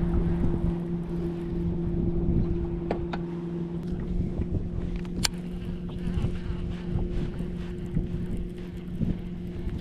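Electric kayak trolling motor running at a steady speed, a constant hum, with wind and water noise underneath. A sharp click is heard about five seconds in.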